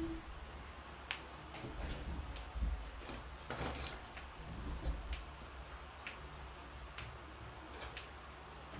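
Faint sharp ticks, roughly one a second, over a low steady rumble of room noise.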